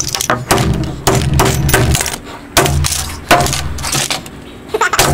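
Hammers smashing small plastic objects on a wooden table, with clinks and clatter of breaking pieces: a fast run of blows for about two seconds, then a few single blows.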